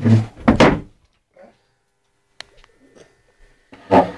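Dull thumps and knocks: a loud one in the first second, a few faint clicks in the middle, and another short knock near the end.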